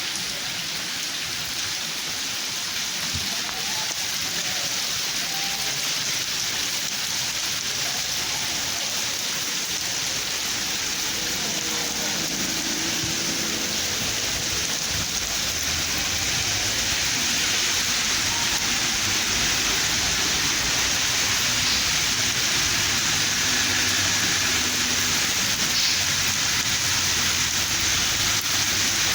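Heavy rain falling steadily, a dense even hiss that gets a little louder about halfway through, with a low rumble coming in during the second half.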